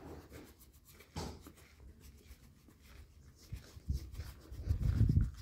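Faint rubbing and scratching of a hand stroking a pony's coat close to the microphone, with a knock about a second in and low muffled bumps near the end.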